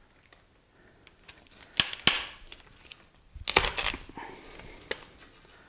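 Long-handled limb lopper crunching through a deer's front leg bone. There are two sharp cracks about two seconds in, a louder run of crunching cracks around three and a half seconds, and one last snap near the end.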